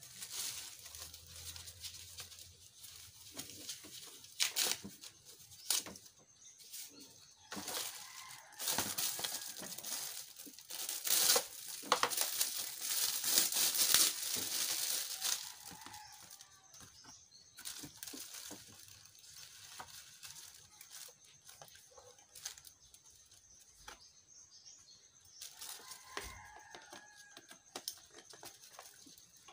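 Crinkling and rustling of plastic wrapping and protective film as a welding mask and its dark shield are unwrapped by hand, with scattered small handling clicks. It is loudest and busiest in the middle stretch, then dies down to occasional rustles.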